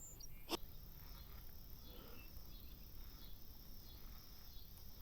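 Faint chirping of insects, with a single sharp click about half a second in.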